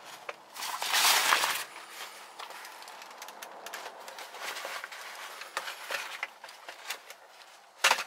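Deployed nylon airbag cushion rustling and crinkling as it is handled and pulled out with the airbag module, loudest about a second in, with scattered small clicks and a sharp noisy burst near the end.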